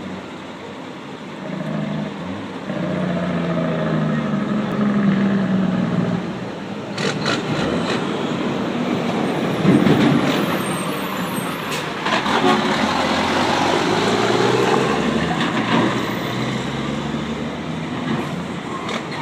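Dump truck's engine pulling away, its pitch rising as it gathers speed, with a loud sharp burst of escaping air about ten seconds in: the truck's 'sneeze'.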